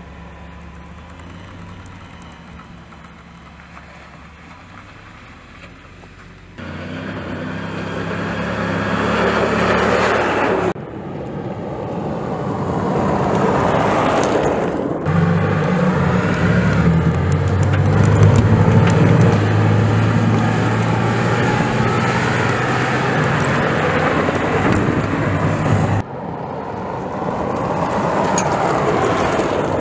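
Ram 2500 Power Wagon's 6.4-liter V8 pickup engine running under load while driving off-road on dirt and gravel, with tyre and road noise. The engine pitch steps up and down. The sound is quieter for the first several seconds and louder after that, with abrupt breaks where takes are cut together.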